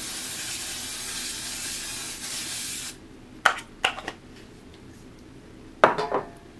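Aerosol cooking spray hissing steadily as the baking pan is coated, cutting off suddenly about three seconds in. A few light knocks and clinks follow.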